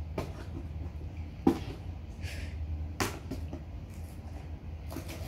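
Cardboard doll box being pulled open by hand: scattered packaging clicks and scrapes, with a sharp snap about a second and a half in and another click at three seconds, over a steady low hum.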